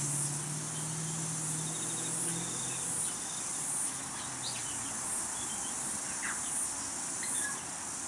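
Steady high-pitched drone of a chorus of insects, swelling and fading at regular intervals, roughly once a second.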